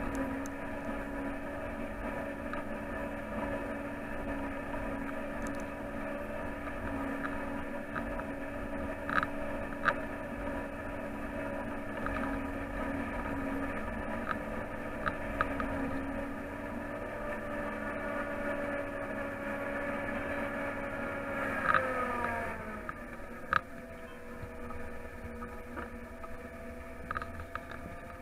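John Deere 8800i self-propelled forage harvester running steadily while it chops grass, heard inside the cab as a drone with several held whining tones and a few light clicks. About 22 s in, the tones glide down together and settle at a lower, quieter pitch.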